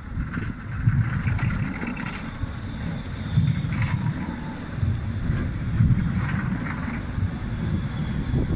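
Pesa Swing low-floor tram passing close by at low speed over rail switches: a rough rumble of wheels on the rails and points, swelling and easing, with the drive's noise and a faint high tone about four seconds in.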